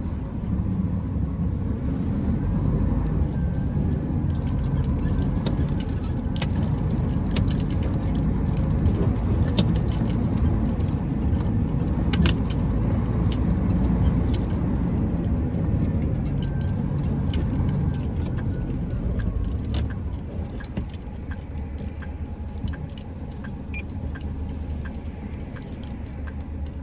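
Heavy truck running, heard inside the cab: a steady low engine and road rumble with frequent light clicks and rattles from the cab's fittings. The rumble eases a little in the last several seconds.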